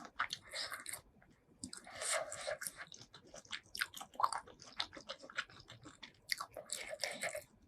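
Close-miked chewing and biting of seafood, a run of short wet clicks and bursts with a brief pause about a second in.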